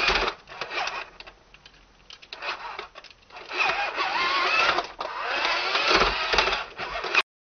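A child's voice making a wavering, buzzing car-engine noise by mouth for a toy car being driven along, stopping suddenly near the end.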